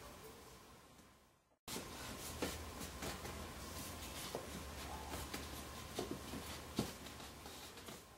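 Pine frame rails being handled on a workbench: scattered light knocks, taps and rubbing of wood on the bench over a low steady hum. The sound drops out briefly about a second and a half in.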